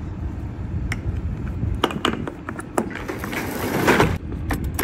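Box truck's rear roll-up cargo door being pulled down by its strap: a few clicks and knocks, then the door rattling shut, loudest about four seconds in.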